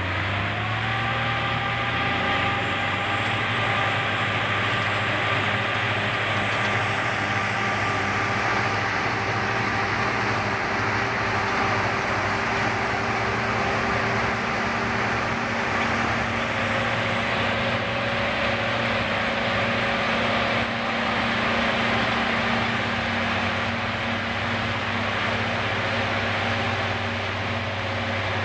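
Heavy machinery engine running steadily, with a steady whine over the low engine note.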